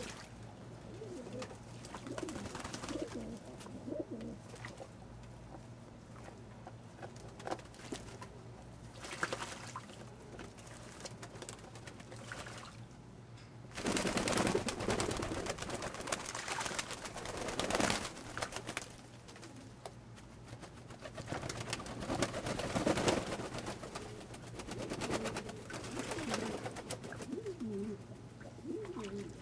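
Old German Owl pigeons cooing in low, wavering calls, with flurries of wings beating and splashing in a shallow bath tub about halfway through and again in the last third.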